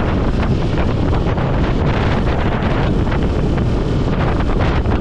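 Steady rush of wind buffeting the microphone on a motorcycle travelling at about 70 km/h.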